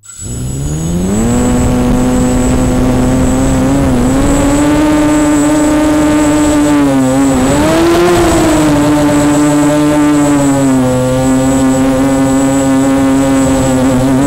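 A Walkera 250 racing quadcopter's motors and propellers spin up at takeoff, rising in pitch over about a second into a loud steady buzz. The buzz then holds, dipping and rising slightly in pitch as the drone flies, heard from its onboard camera.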